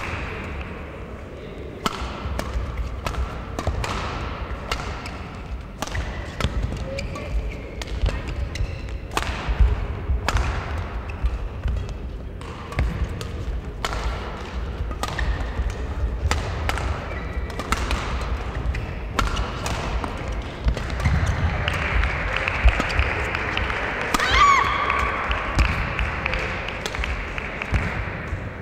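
Badminton rally: sharp racket strikes on the shuttlecock again and again, with players' footsteps thudding and squeaking on the court mat, mixed with play on neighbouring courts.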